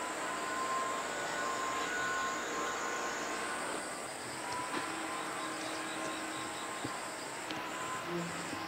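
Outdoor ambience: a steady high-pitched buzz over a constant background rumble, with a few faint steady tones. The buzz steps up in pitch about three seconds in and turns to short pulses near the end.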